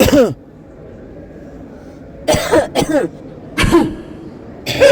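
People coughing one after another: a cough at the start, a cluster of coughs about two seconds in, another shortly after, and a longer fit beginning near the end, with quiet gaps between them.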